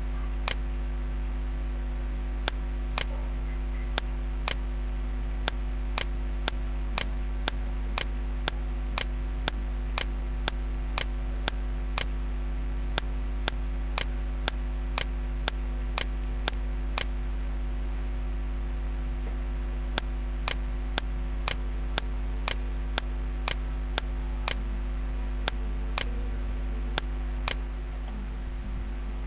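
Computer mouse button clicking at an uneven pace, about one or two clicks a second with a short break partway through, as the Burn Tool is dabbed on. A steady low electrical hum runs underneath.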